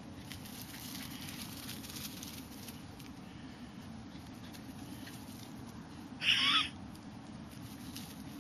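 A single short, high-pitched yip from one of the Havanese dogs at play, about six seconds in, over a low, steady background rumble.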